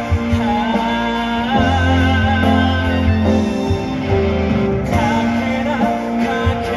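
A live band playing through a PA: a singer's voice over electric guitars, bass, keyboards and drums.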